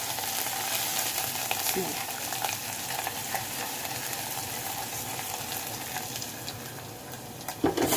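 Minced garlic and ground coriander sizzling in hot olive oil in a small pan, fried golden, with occasional light clicks. The steady sizzle eases slightly toward the end.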